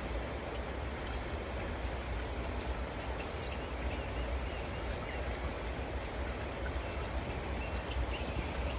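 Water running steadily, like a small mountain stream, as an even rushing noise.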